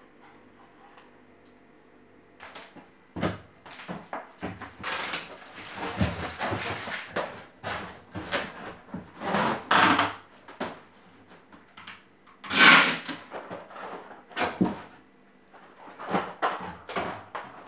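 A cardboard shipping box being taped up, with packing tape pulled off the roll in several long, noisy strips and cardboard flaps knocking between them. The loudest tape pull comes about two-thirds of the way through. A quiet steady hum fills the first two seconds or so.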